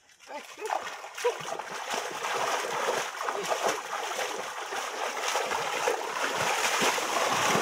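Hands splashing and thrashing in shallow mangrove water while grabbing at a crab, starting about half a second in and getting louder.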